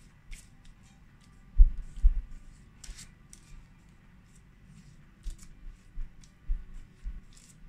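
Pastry brush dabbing and stroking egg wash onto raw empanadas on a parchment-lined baking tray: scattered soft swishes and paper rustles, with a couple of dull low thumps about one and a half and two seconds in.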